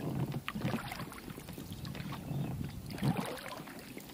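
Oars rowing an inflatable boat: uneven strokes of water swishing and splashing, with a few light knocks.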